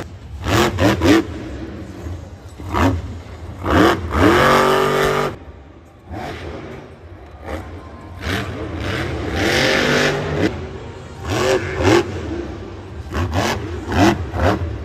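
Monster truck's supercharged V8 revving hard in repeated throttle blips, with two longer revs whose pitch rises and falls, as the truck drives, climbs and jumps.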